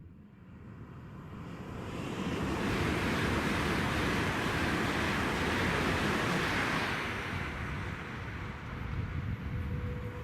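A train passing at speed: a rising rush of wheel and air noise that builds over the first couple of seconds, holds loud through the middle, then eases off.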